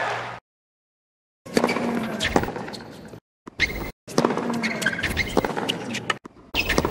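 Hard-court tennis sound before a serve: a few low thuds of the ball being bounced, and short high squeaks of shoes on the court, over a murmuring crowd. The sound cuts out abruptly to silence several times, first for about a second at the start.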